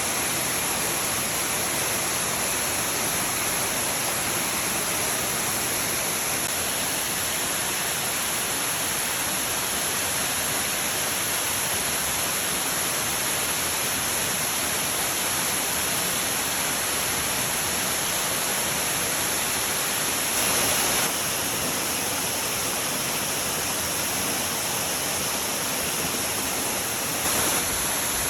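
Waterfall: a steady, even rush of falling water, with two brief louder moments about two-thirds of the way through and near the end.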